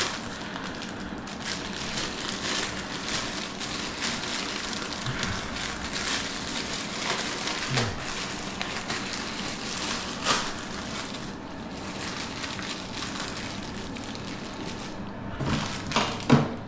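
Crinkling and rustling with scattered light clicks: the plastic parts and washers of a new toilet cistern syphon being handled and unpacked.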